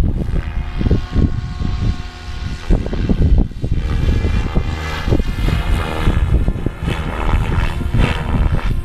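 SAB Goblin 570 electric RC helicopter flying overhead: a steady whine from its rotor and motor, shifting in pitch as it manoeuvres, over a gusty low rumble from wind on the microphone.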